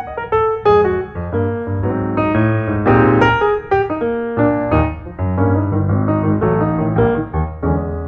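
Piano music: a quick melody of struck notes over held low bass notes.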